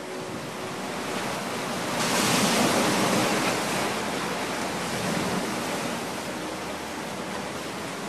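Small sea waves breaking and washing up a sandy, rocky shore, a steady rushing that swells about two seconds in and then eases off.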